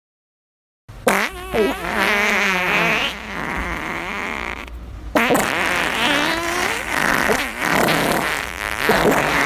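Fart sound effects: after about a second of dead silence, a run of long, wavering, pitched farts, with a short dip just before the middle.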